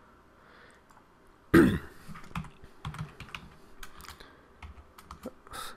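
Typing on a computer keyboard: irregular key clicks over the last four seconds, as an address is entered into a form field. About a second and a half in comes a brief, louder throat noise from the typist, the loudest sound here.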